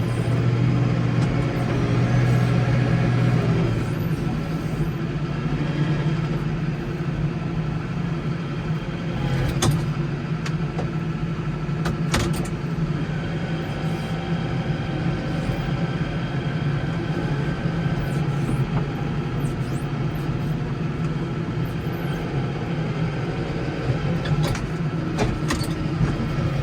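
Case 115U garden tractor's engine running steadily, a little louder for the first few seconds, with a couple of sharp clicks midway.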